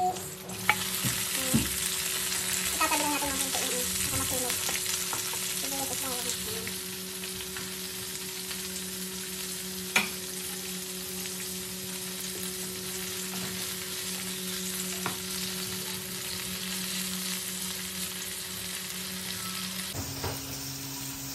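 Chopped tomatoes, onions and bell peppers sizzling in hot oil in a wok as they are stirred with a wooden spatula, the sizzle louder in the first few seconds after the tomatoes go in. A few sharp knocks of the spatula against the pan, the loudest about ten seconds in.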